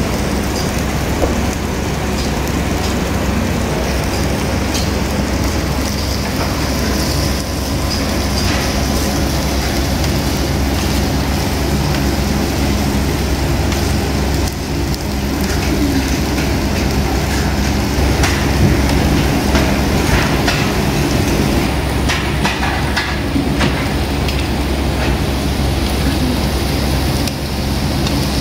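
Meat sizzling on a tabletop Korean barbecue grill, a steady crackling hiss over a low steady hum, with a few scattered clicks.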